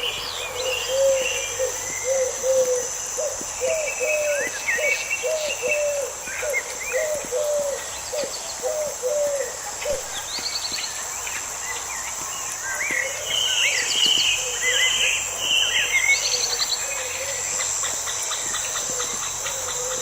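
Garden birdsong: scattered chirps and short trills, over a steady high-pitched insect buzz. For the first half, a low call repeats about twice a second, then stops.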